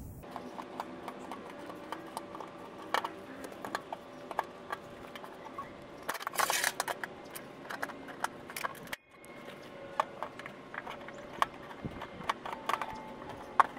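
Irregular light metallic clicks and clinks of a hand folding tool and locking clamps being worked along the flange of a car door skin as it is folded over. A louder metallic rattle comes about six and a half seconds in.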